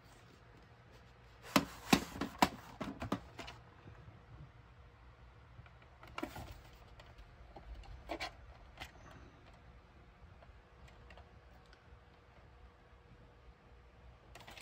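A VHS cassette and its cardboard sleeve being handled: a quick cluster of sharp plastic clicks and rubbing about two seconds in, then a couple of single clicks and faint scrapes.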